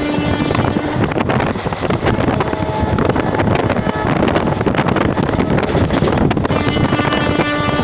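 Passenger train hauled by a WAP-1 electric locomotive running at speed: a steady loud rumble with rapid wheel clatter, and wind buffeting the microphone.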